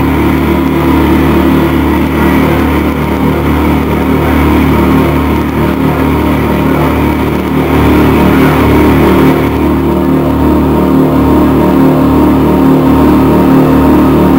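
Industrial aggrotech band playing live: a loud, steady droning wall of distorted synth and bass, with the higher sounds dropping away about two thirds of the way through.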